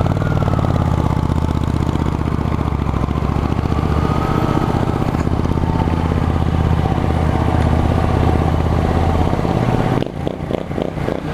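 1996 Honda CG 125's single-cylinder four-stroke engine running at a steady speed, then easing off with the engine note dropping about ten seconds in.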